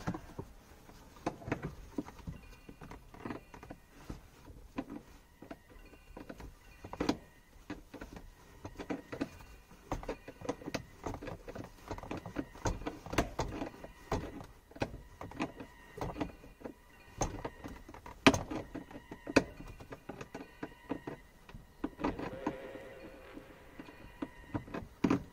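Hand tools working on a bolt under a car's dismantled center console: a ratchet wrench and tool clatter making irregular clicks and knocks on metal and plastic trim, the loudest knock about 18 seconds in.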